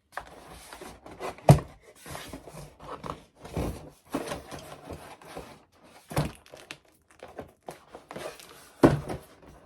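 Rustling and handling noises from a foam-board box, with a sharp knock about one and a half seconds in and another near the end.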